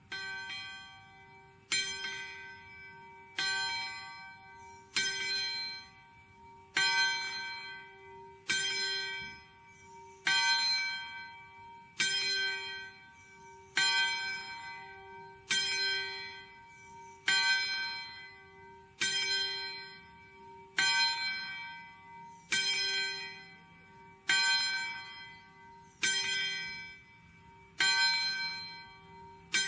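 A single church bell tolling at a steady pace, struck about once every one and three-quarter seconds with the same note each time. Each stroke rings out and fades before the next, over a lingering low hum.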